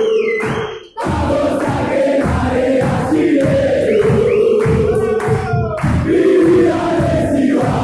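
A group of football supporters singing a chant together, over a regular low beat. The sound cuts out briefly just before a second in.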